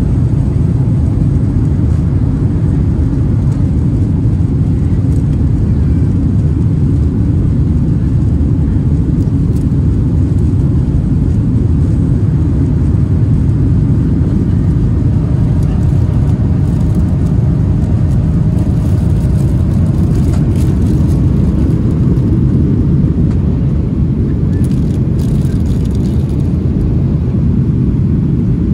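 Steady low rumble of a Skymark Boeing 737-800's jet engines and rushing air, heard from inside the passenger cabin in flight.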